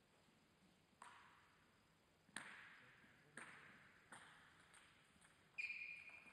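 Table tennis ball bounced on the table several times, sharp clicks roughly a second apart, each trailing off in the hall's echo. The loudest and most ringing bounce comes near the end.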